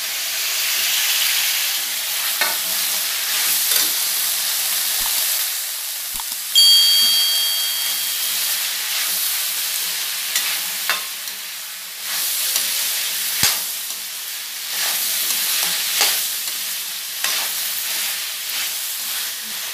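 Chopped vegetables sizzling in hot oil in a metal kadai while a metal ladle stirs and tosses them, scraping and knocking against the pan. About a third of the way in, a high steady tone sounds for about two seconds.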